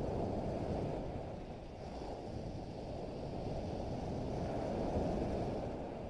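Sea surf breaking and washing up a sandy beach, swelling louder twice, with wind rumbling on the microphone.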